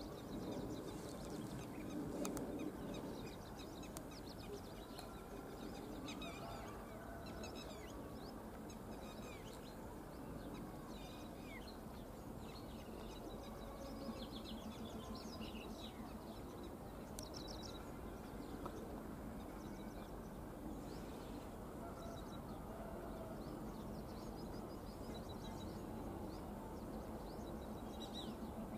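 Birds chirping over the faint, steady drone of an approaching ALCO diesel locomotive, the engine's hum growing a little louder toward the end.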